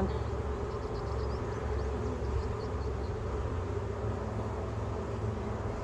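A swarm of honeybees buzzing steadily around an open hive, with a low rumble underneath.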